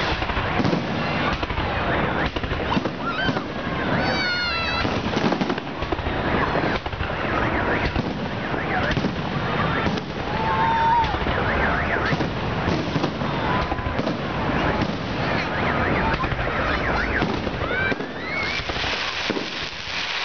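Fireworks display: a dense, continuous run of bangs and crackles, with a few short whistles gliding in pitch.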